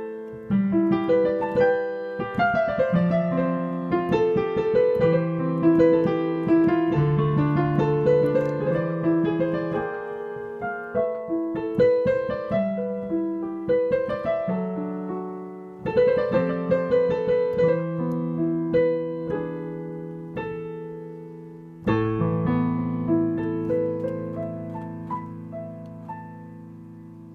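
Piano improvisation played with both hands: flowing phrases of single notes over chords. Fresh strong entries come about 16 and 22 seconds in, and the last is a low chord held and left to die away.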